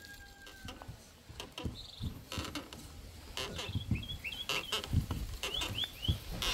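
Hands kneading flour dough for dumplings, giving a string of soft, irregular thumps and slaps. Birds chirp in short high bursts about midway and again near the end.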